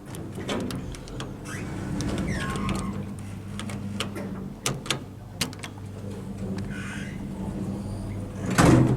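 GEC Express hydraulic lift running: a steady low hum from its pump motor, with clicks and rattles, a short falling squeal about two seconds in, and a loud bang near the end.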